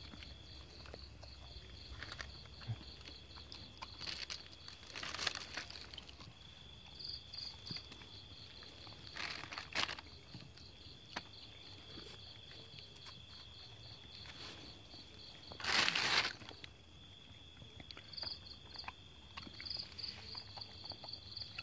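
A plastic bag crinkling in a few short bursts as a hand rummages through the food in it, the loudest about 16 seconds in. Insects chirp steadily throughout.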